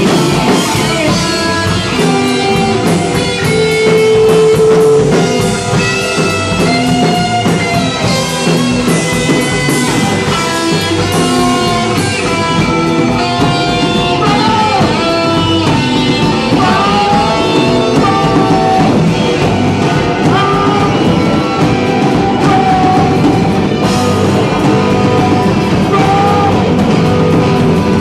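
Live loud rock band music with electric guitar and drum kit, dense and continuous, with wavering melodic lines over it.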